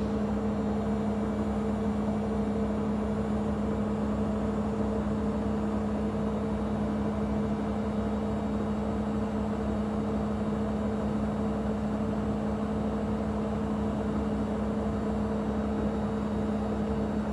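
Beko washing machine running with a steady mechanical hum: one low, even tone over a bed of motor noise.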